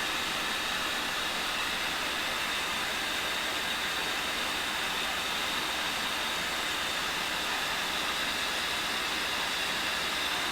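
Cincinnati tool and cutter grinder running with its diamond wheel spinning free, a steady even whirring hiss with a faint high whine, the tool backed off the wheel.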